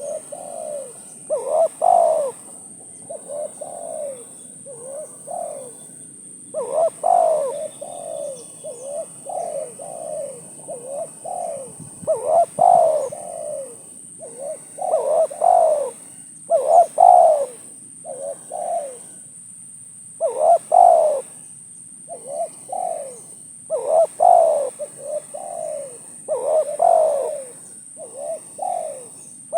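Spotted dove (tekukur) cooing over and over in short phrases: clusters of two to four curved coos with brief pauses between them.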